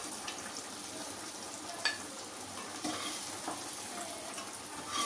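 Sliced onions frying in hot oil in a kadai, a steady sizzle, the onions fried reddish-brown. A few light clicks of a spatula against the pan as the onions are stirred and lifted out.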